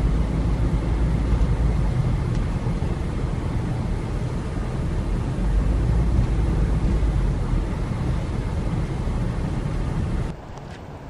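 Steady low rumble of a car driving on a snow-covered street, heard from inside the cabin: engine and tyres on packed snow. It drops away suddenly near the end to a much quieter background.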